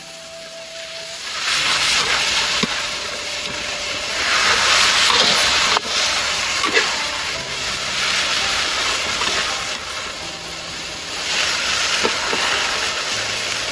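Loud hissing that starts about a second in and swells and eases several times, with a few faint ticks, over soft background music.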